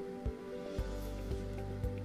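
Background music with a steady beat, about two beats a second, and a low bass line that comes in just under a second in.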